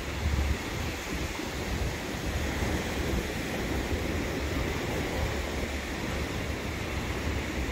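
Surf washing on a sandy shore, a steady rush, with wind buffeting the microphone in uneven low rumbles.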